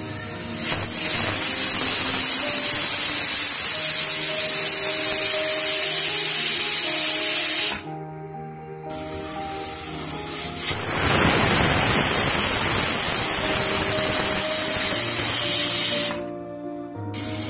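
Aluminium pressure cooker whistling: steam escaping under its weighted whistle valve in two long hisses of about seven seconds each, broken briefly about eight seconds in.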